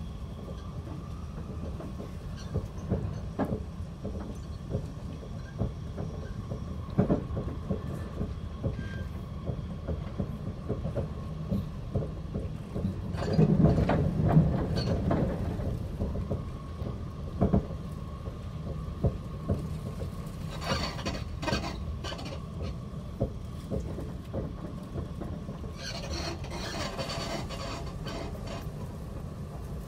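Running noise heard from inside the cabin of a moving passenger vehicle: a steady low rumble with frequent rattles and clicks and a faint steady whine. The rumble swells louder for a couple of seconds about halfway through.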